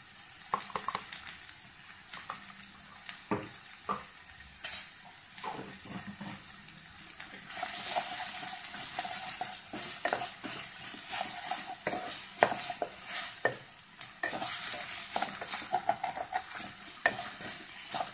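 Sliced onions and ginger-garlic paste sizzling in oil in a frying pan while a wooden slotted spatula stirs and scrapes them, with frequent light knocks of the spatula against the pan. The sizzle grows louder about halfway through as the paste is fried to cook out its raw smell.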